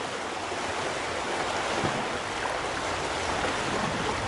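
A steady rushing of wind and surf, with the faint low drone of an approaching trophy truck's engine slowly growing louder under it.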